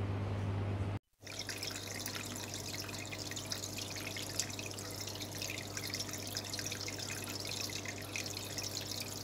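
Water trickling and dripping steadily, with many small splashes, over a low steady hum. The sound drops out briefly about a second in.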